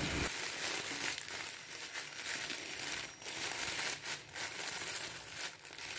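Dry vermicelli being crushed by hand inside its plastic packet: the wrapper crinkles while the thin noodles break into small pieces, with irregular crackles.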